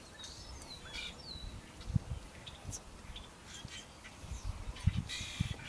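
Wild birds calling outdoors: short high chirps and falling whistles, and a harsher call near the end. Faint low knocks and rumble underneath.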